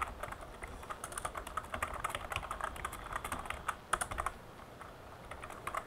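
Typing on a computer keyboard: a quick run of key clicks for about four seconds, then a short pause and a few more keystrokes near the end.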